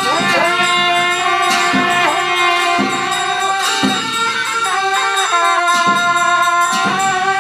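Tibetan Buddhist monks' ritual music: a loud reedy wind instrument holding long notes that bend in pitch where each begins, over repeated percussion strikes.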